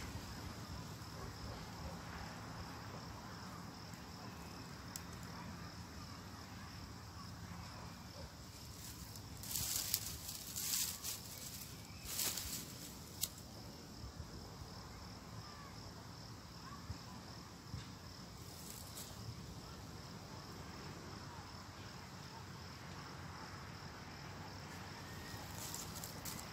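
Quiet outdoor background with a faint, steady insect trill throughout. A few short rustling noises come about ten to thirteen seconds in.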